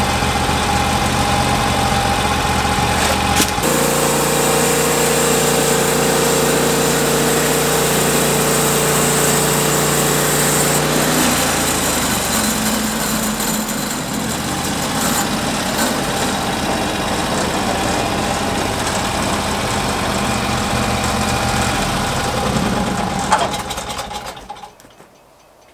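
Portable sawmill's engine running under load while the saw cuts through a cypress log, its pitch shifting about three and a half seconds in and again around eleven seconds. A click comes near the end, then the engine winds down and stops.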